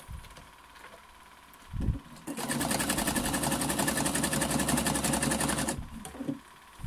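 Electronic sewing machine stitching a long zigzag over a rolled fabric strip, running at a fast, even rate for about three and a half seconds and then stopping abruptly. A soft thump comes just before it starts.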